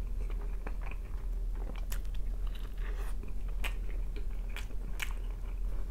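Close-up sounds of a person chewing a mouthful of burger: wet mouth smacks and sharp clicks every half second to a second as the jaw works.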